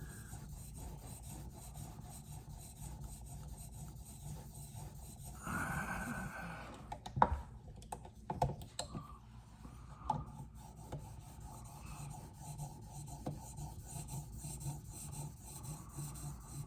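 A 600-grit diamond sharpening plate on a guided knife sharpening system, rubbing back and forth along a knife edge in faint, steady strokes. A few light clicks come about seven to nine seconds in.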